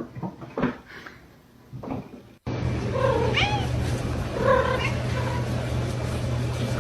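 A domestic cat meowing: two drawn-out meows about a second and a half apart, over a steady low hum that cuts in suddenly partway through. A few short sharp sounds come before the hum.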